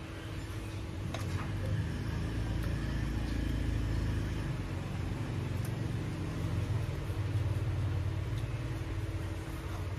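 Low rumble of road traffic, growing louder from about a second in and easing near the end, with a faint steady hum beneath it.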